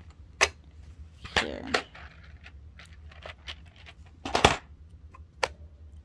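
A few sharp clicks and knocks of a small bobbin and other small objects being handled and set down on a sewing machine's plastic bed, the loudest about four and a half seconds in, over a low steady hum.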